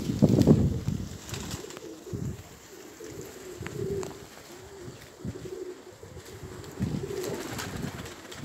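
Domestic pigeons cooing close by, with repeated low, wavering coos. Gusts of wind rumble on the microphone in about the first second.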